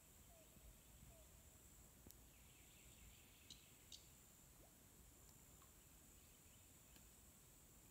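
Near silence: faint riverside ambience with a thin, steady high-pitched drone, a few short falling calls in the first second, and two soft clicks about halfway through.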